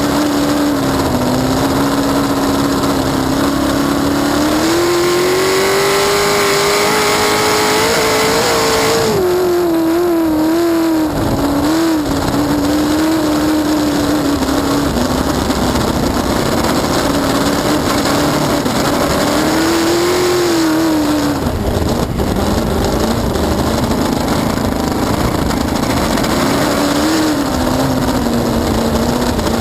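Cracker box race boat's engine running hard under way, with wind and water rushing past. The engine note climbs for a few seconds, drops back about nine seconds in, and swells and falls again past the twenty-second mark.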